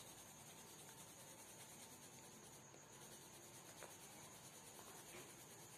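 Faint scratching of a coloured pencil shading on sketchbook paper, over a steady low hiss.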